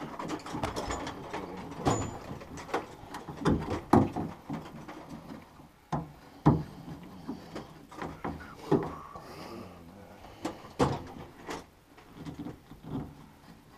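Irregular clicks, knocks and clunks of hands working on metal parts around a pickup's fuel tank and filler neck, a dozen or so sharp knocks spread unevenly through it.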